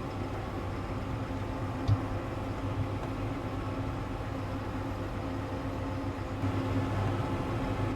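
New Holland T7.315 tractor's six-cylinder diesel engine running steadily, heard from the cab, with a single sharp knock about two seconds in.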